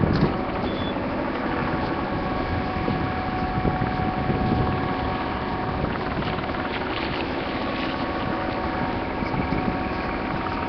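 Steady machinery drone with a few held tones, overlaid by wind rumbling on the phone's microphone, in gusts at the start and again about four seconds in.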